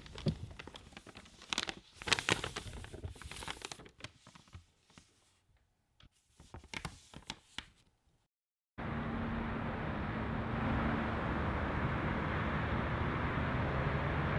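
Paper burger wrapper crinkling and rustling in bursts as it is unwrapped and handled, thinning to a few scattered small rustles. After a moment of dead silence, about nine seconds in, a steady hiss with a low hum starts abruptly and holds.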